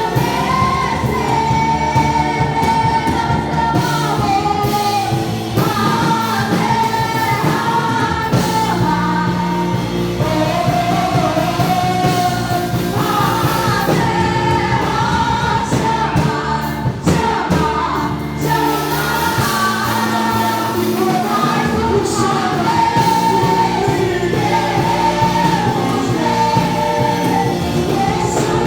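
Worship music: singing over a steady instrumental accompaniment.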